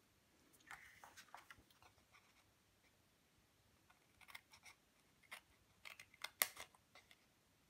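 Small scissors snipping into thick card along its scored fold lines: a few short, faint snips, the sharpest about two-thirds of the way through. A soft rustle of the card being handled comes first.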